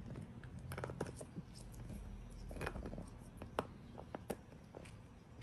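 Dachshund gnawing and chewing on a hard object: irregular small clicks and scratchy crackles of teeth, with a few sharper clicks past the middle.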